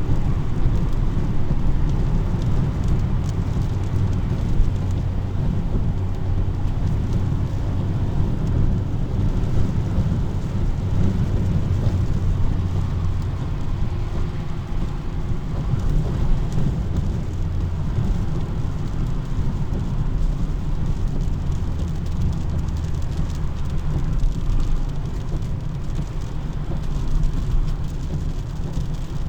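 Steady rain with a low, continuous rumble of car and road noise on wet tarmac.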